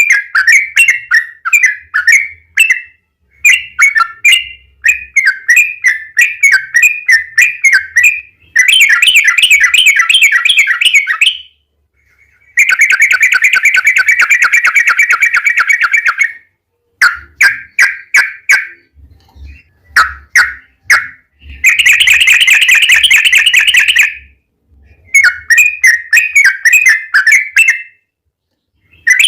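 Yellow-vented bulbul (trucukan) singing loudly: bubbly phrases of quick chirping notes broken by three long, rapid trills of a few seconds each, the 'long ropel' used as a lure song.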